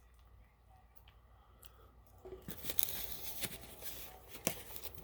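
Fast-food packaging being torn and crinkled close to the microphone, starting about two seconds in and lasting a couple of seconds, with sharp crackles.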